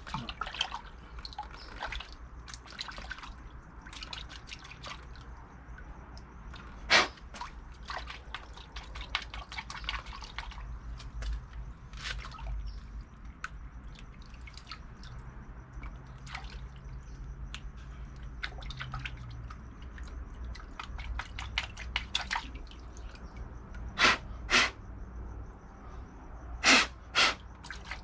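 Water dripping and trickling, with scattered small clicks and taps and a few sharp, louder knocks, two pairs of them near the end.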